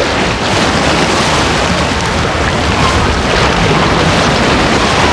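Steady rushing noise of wind on the microphone and sea surface, with no whale song audible.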